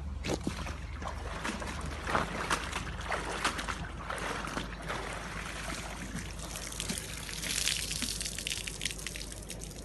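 Canal water trickling and dripping out of a camcorder freshly pulled from the canal as it is handled, with small clicks and knocks from the handling.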